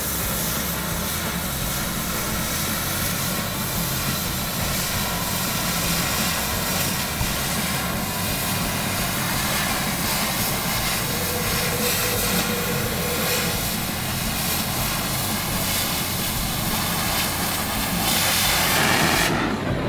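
Oxy-acetylene cutting torch bevel-cutting steel plate: the oxygen jet blows molten metal out of the kerf with a steady ripping rush, the sound of a good, even cut. It stops abruptly just before the end.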